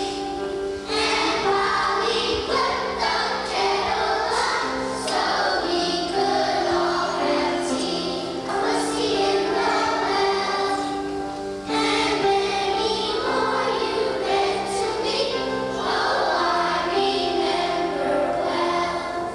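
A choir of young children singing together with instrumental accompaniment, heard as a song with short breaks between phrases.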